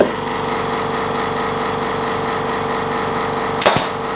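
Air compressor motor running with a steady drone, kicking in abruptly at the start. About three and a half seconds in, a pneumatic brad nailer fires once, a loud sharp double crack.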